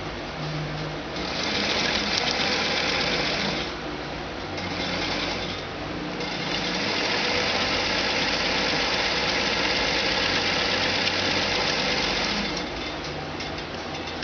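Sewing machine stitching a seam in three runs: one of a few seconds starting about a second in, a short one soon after, then a longer steady run of about six seconds that stops shortly before the end.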